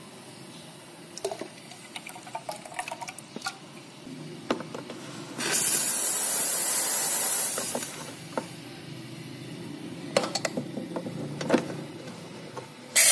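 Espresso machine steam wand blown through on its own: a loud, steady hiss of steam lasting about two seconds, midway through. Before and after it come light clinks and knocks as a stainless steel milk pitcher is handled. Right at the end the steam hisses again as the wand opens into the milk to froth it.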